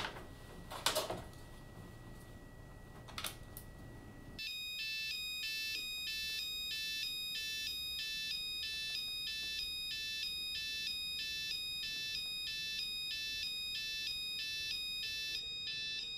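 A couple of soft knocks or rustles. About four seconds in, a high electronic beeping melody starts abruptly, like a ringtone, and repeats steadily: the locating sound of a GPS tracker on a cat's collar.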